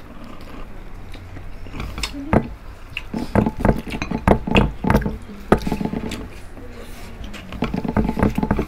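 Close-up eating sounds: crispy fried pork tenderloin being chewed and crunched, with irregular sharp clicks of fingers and food on plates.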